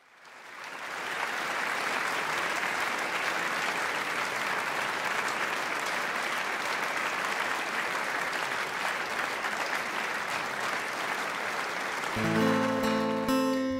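Audience applauding, swelling in over the first second and then holding steady. About twelve seconds in, the applause gives way to acoustic guitars strumming chords.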